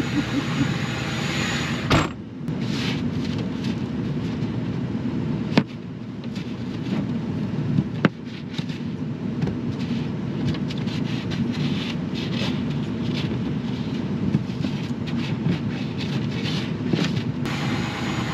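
Ford Super Duty's 6.0 Power Stroke V8 turbodiesel idling steadily, with three sharp knocks about two, five and a half, and eight seconds in.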